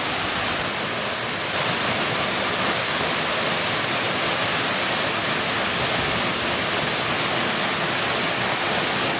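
Deojhar Waterfall, a 40-foot forest cascade, rushing steadily in an even, full-range roar that gets slightly louder about a second and a half in.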